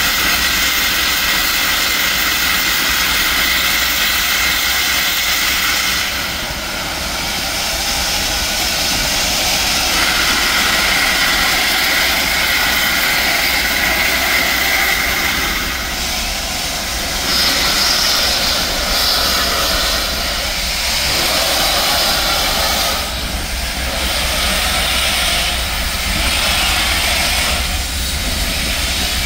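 Union Pacific Big Boy #4014 steam locomotive's open cylinder cocks blowing steam in a loud, continuous hiss that surges and eases every few seconds as the engine starts to move. The open cocks are clearing condensed water from the cylinders.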